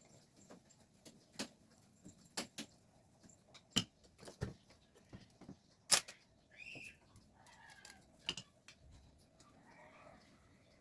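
Scattered sharp clicks and light knocks, about a dozen spread unevenly, typical of small metal carburetor parts and hand tools being handled on a workbench. About six to seven seconds in there is a short high-pitched sound.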